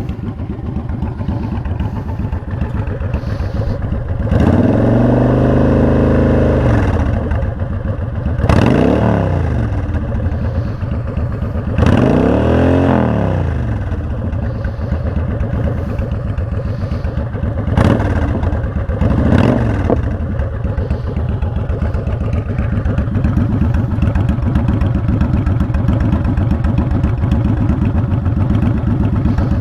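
Honda Shadow Spirit 750 V-twin idling through a Cobra Streetrod Slashdown exhaust with the baffles out, revved about five times. The first rev is held for a couple of seconds and the rest are quick blips, each falling back to idle.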